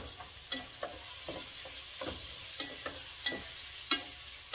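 Washed rice sizzling in a pot as it is stirred with a wooden spatula, which scrapes and taps against the pot in irregular strokes over a steady hiss.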